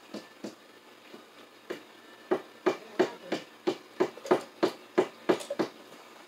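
Sharp taps from hand-tool work at an open electrical breaker panel. A few come singly early on, then a steady run of about three a second starts about two seconds in and stops shortly before the end.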